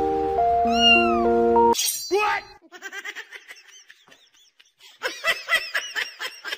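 Background music that stops a little under two seconds in, followed by a cat meowing: one short call, then a quick run of short meows near the end.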